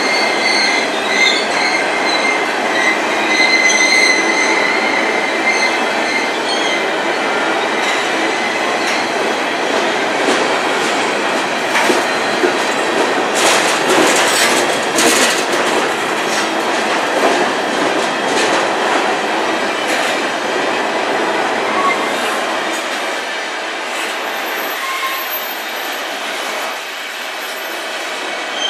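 Covered hopper cars of a potash freight train rolling past close by: a steady rumble and clatter of steel wheels on rail. High wheel squeal sounds in the first few seconds, and a run of sharp clicks comes about halfway through. The train gets a little quieter near the end.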